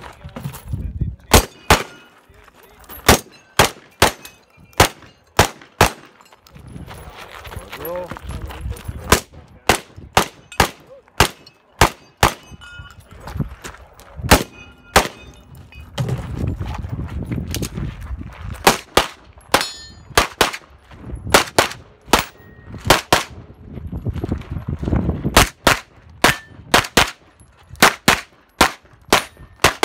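Rapid competition gunfire from a rifle and a pistol: more than thirty sharp shots in quick strings, broken by pauses of a few seconds about a quarter of the way and halfway through. A few short metallic pings are mixed in.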